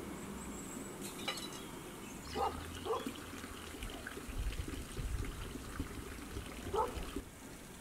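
Dishes being washed by hand, with water pouring and trickling over them, and a few short clinks and knocks of crockery from a couple of seconds in.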